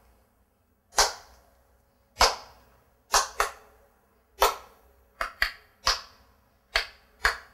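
Sharp hand claps at irregular intervals, about ten in all, some in quick pairs, each with a short room echo.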